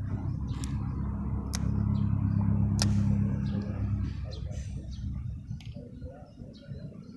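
Engine of a passing vehicle: a steady low hum that grows over the first few seconds and fades away after about four seconds. Three sharp clicks sound over it in the first three seconds.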